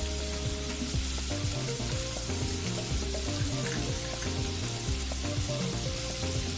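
Sliced onions sizzling as they fry in oil in an aluminium pot, stirred now and then with a steel ladle, over steady background music.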